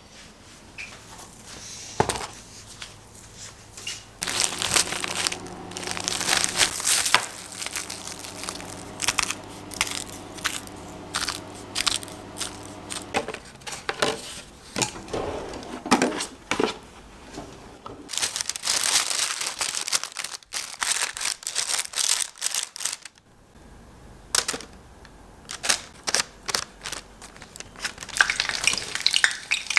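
Kitchen handling noises: plastic crinkling and tearing, with many sharp clicks and light knocks. A steady low hum runs underneath for about the first half, then stops.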